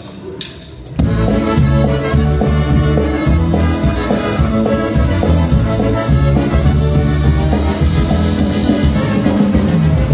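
A polka band with trumpets and clarinet strikes up about a second in and plays an instrumental stretch with a steady bouncing beat, during a sound check.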